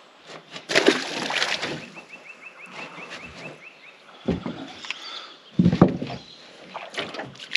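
Handling noise on an aluminium fishing boat. About a second in there is a brief splash-like rush as a small undersized barramundi is let go over the side. A fast run of light clicks follows, then several knocks and thumps on the metal hull as rods and gear are handled.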